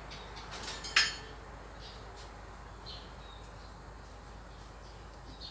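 A single sharp clack, something hard knocking, about a second in, ringing briefly. A few faint short ticks come and go over quiet kitchen background.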